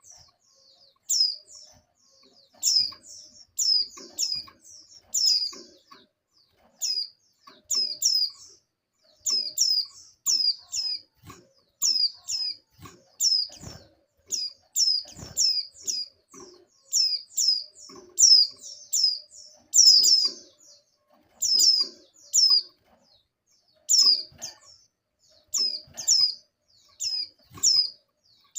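Female white-eye (pleci) in breeding condition giving short, high, downward-sliding chirps, singly or in quick runs of two to four, about once a second: the call she uses to draw a male. Faint soft knocks come under some of the chirps.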